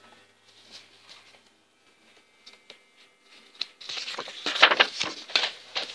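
Paper pages of a book being handled and turned: a few faint clicks at first, then loud paper rustling and crackling in the last two seconds.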